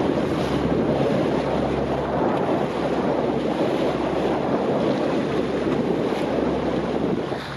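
Wind buffeting the microphone and choppy water rushing around a small inflatable boat, a steady rushing noise throughout, with a faint steady low hum of the boat's outboard motor beneath.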